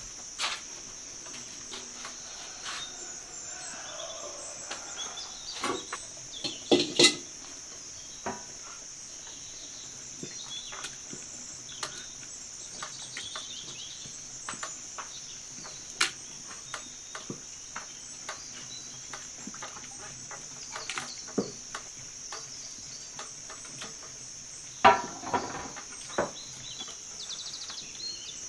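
Crickets chirring steadily in one continuous high-pitched drone. Scattered knocks and clatter from metal cooking pots and utensils come through it, the loudest about 7 seconds in and again near 25 seconds.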